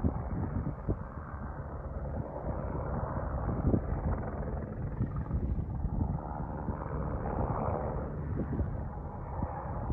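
A helicopter flying at a distance, its steady running mixed with wind buffeting the microphone.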